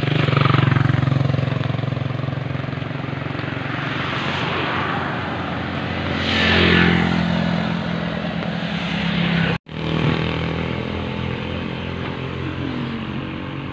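Road traffic with motor engines running steadily, and a vehicle passing about six seconds in. After a brief dropout a little under ten seconds in, the steady engine drone of a moving vehicle is heard from inside it.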